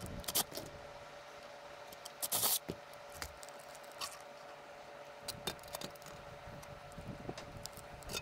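Plastic and metal parts of a Starlink pivot roof mount being handled and pulled apart: scattered clicks and knocks, the sharpest about half a second in, with a short scraping hiss about two seconds in.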